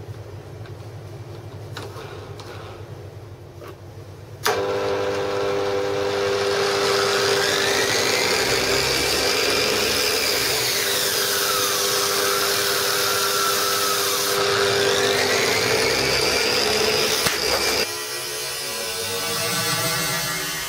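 Angle grinder driving a homemade spindle sanding drum, switched on about four seconds in for a test run. It runs loud and steady with a whine that falls in pitch and rises again midway, then is switched off near the end and winds down.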